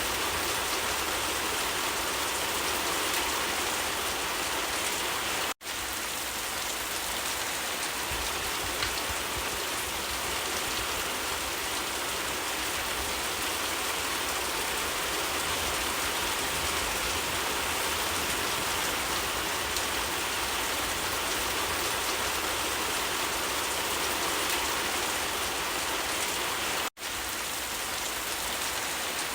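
Steady rain falling on leaves: a dense, even patter of drops. It is broken twice by a split-second gap, about five seconds in and near the end.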